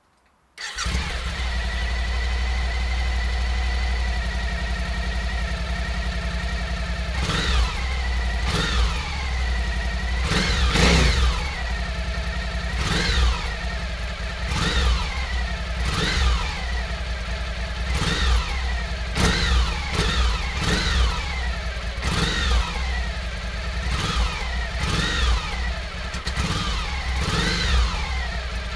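Suzuki V-Strom 1000's 1037 cc 90-degree V-twin engine, through its factory exhaust, starting about a second in and idling steadily. From about seven seconds in it is blipped over and over, a short rev every second or two that drops quickly back to idle.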